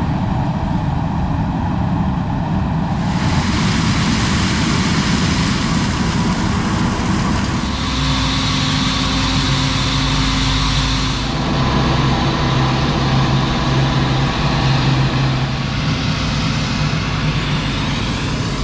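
Heavy diesel harvest machinery running, a combine harvester and tractor at work. The engine sound changes abruptly three times.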